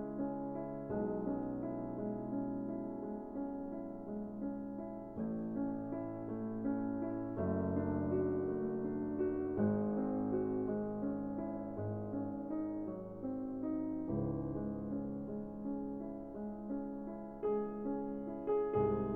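Soft background piano music: sustained chords and melody notes changing every second or two.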